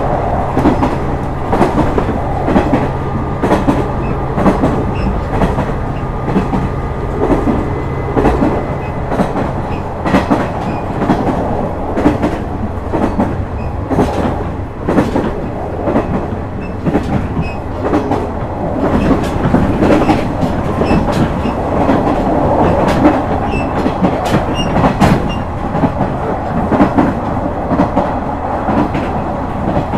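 KiHa 126 series diesel railcar running at speed: wheels clicking rhythmically over rail joints, over a steady low diesel engine hum that falls away about ten seconds in.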